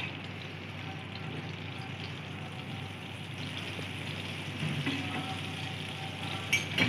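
Butter melting and sizzling gently in hot cooking oil in a flat pan, a steady soft frying hiss. There is a short sharp knock near the end.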